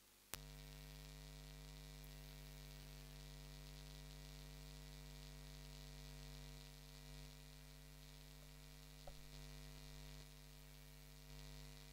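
A click about a third of a second in, then a faint, steady electrical mains hum with many even overtones.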